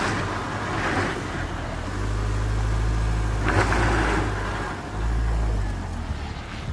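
Mahindra XUV500's engine running hard in first gear, its note stronger from about two seconds in, while the front tyre spins freely without grip on black ice and slush, with a hiss of slush thrown up by the wheel.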